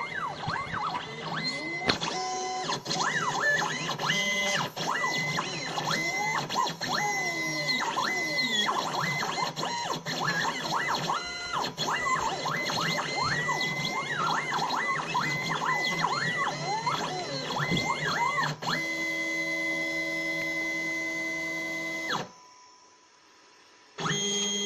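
Stepper motors of a homemade CNC pen plotter whining as it draws with a felt-tip marker. The pitch glides up and down and jumps between steady notes as the axes speed up, hold speed and slow down along each stroke. Near the end it holds a few steady notes for several seconds, cuts out for about two seconds, then starts again.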